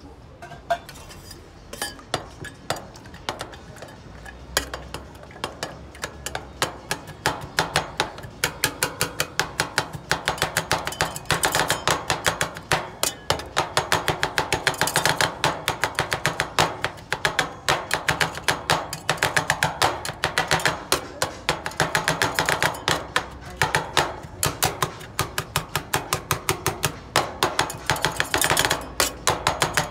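Metal spatulas chopping and tapping the ice cream mix on the cold steel plate of an iron-plate rolled ice cream griddle. A few scattered clicks at first, then a fast, continuous clatter of metal on metal from about eight seconds in.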